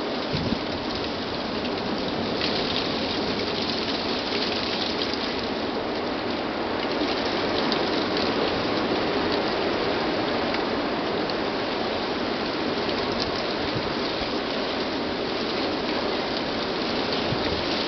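Blizzard wind driving snow past the microphone, a steady hiss that holds without a break.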